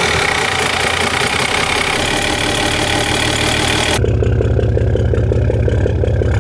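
An overhauled 230 hp Mercedes marine diesel engine running on its test run. About four seconds in, the sound changes abruptly from a dense, hissy clatter to a lower, evenly pulsing idle with a regular tick.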